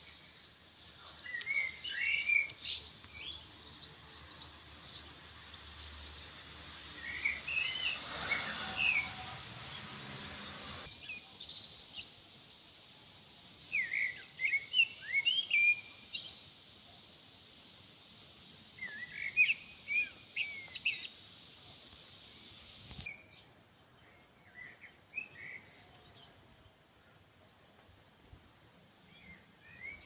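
Small songbirds chirping and singing in short phrases of quick, rising and falling notes, several bursts a few seconds apart, over a steady high hiss.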